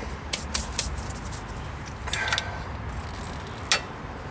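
Scattered light metallic clicks and taps from a screwdriver working the parking-brake shoe adjuster behind the rear hub of a 2002 Chevy TrailBlazer, with one sharper click near the end.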